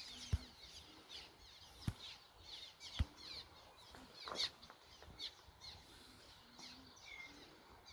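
A flock of nesting birds calling over one another: a steady chatter of many short, high chirps that slide downward in pitch. A few sharp low thumps come in the first three seconds, near the microphone.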